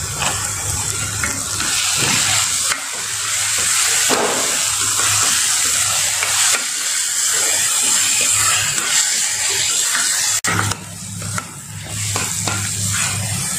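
Chopped onion, ginger-garlic paste, cashews and almonds frying in ghee in a kadhai, sizzling steadily while a slotted spoon stirs and scrapes them around the pan. The sizzle drops out briefly about ten seconds in.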